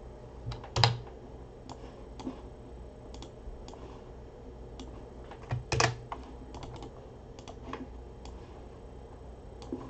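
Irregular clicks and taps on a computer keyboard, two of them louder: one about a second in and one near six seconds.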